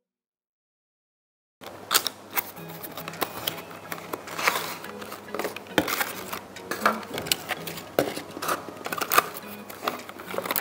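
Clear plastic tray and cardboard box of a diecast toy car being handled, a quick run of clicks and crinkles, over background music. The track is silent for about the first second and a half.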